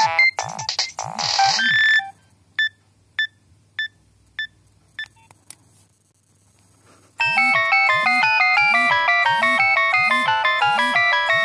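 Nokia 7210 ringtones played back to back. A fast electronic melody ends about two seconds in, then about six short pinging notes fade away, and after a brief pause a new busy ringtone melody starts with an evenly repeating bass note.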